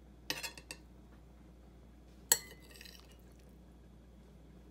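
Utensil clinking and scraping against a ceramic dinner plate while fried eggs are laid on it: a quick cluster of small clicks in the first second, then one sharp clink with a short ring a little over two seconds in.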